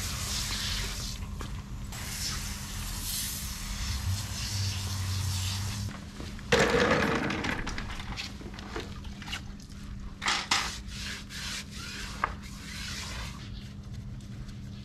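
A hand-pump foam sprayer hisses as foam is sprayed over the car's body. About six and a half seconds in there is a loud short burst, then scattered scrubbing and rubbing strokes on the wheel and tire, over a steady low hum.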